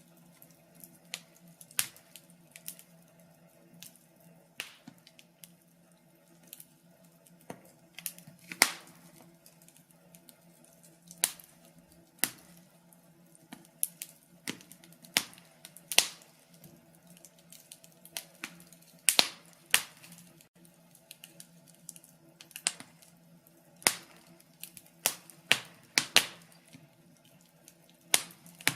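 Wood fire in a fireplace crackling, with sharp irregular pops and snaps, some in quick clusters, over a faint steady low hum.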